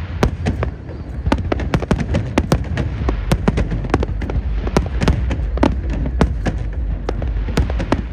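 Fireworks display going off: many sharp bangs and crackling pops in quick succession, several a second, over a steady low rumble.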